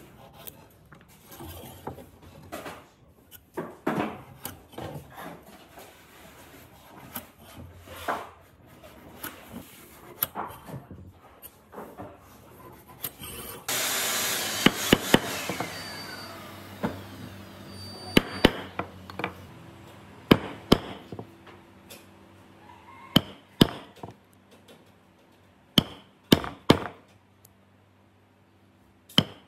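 Light scraping and handling on wood, then a chisel driven by a mallet chopping notches into the edge of a wooden tabletop. The knocks come in sharp clusters, with wood chips splitting away.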